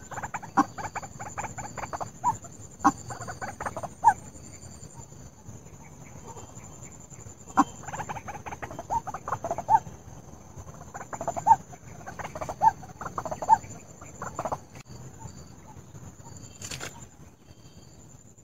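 White-breasted waterhen calling in three bouts of rapid, harsh repeated notes, played as a lure call. A steady high-pitched tone sounds underneath.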